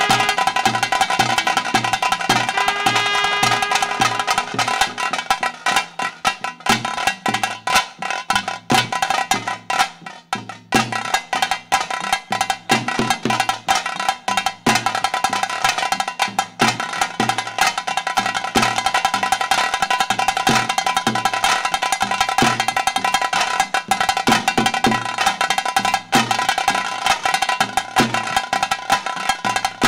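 Tase drums beaten fast and continuously with sticks in the driving rhythm that accompanies a pili nalike tiger dance. A steady high tone sustains over the drumming, and a pitched note sounds briefly near the start.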